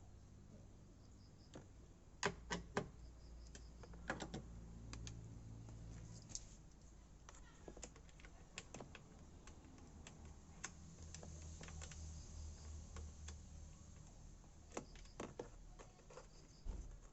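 Irregular light clicks and taps, a few louder ones about two and four seconds in, over a faint low hum.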